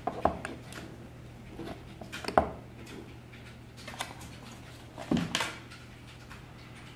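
Metal-cased RC crawler motors knocking and clinking against each other and a wooden desk as they are handled and set down, a few separate knocks spread through the clip.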